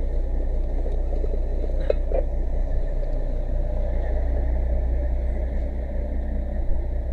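Fire engine running steadily with a low, even rumble.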